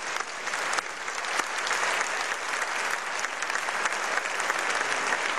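Large concert-hall audience applauding, dense steady clapping that grows a little louder about a second and a half in.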